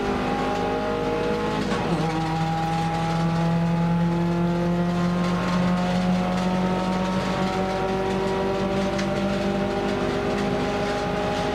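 In-cabin sound of a Nissan March one-make race car's engine running hard at speed. A quick gear change comes about two seconds in, then the engine is held under load with the revs climbing slowly.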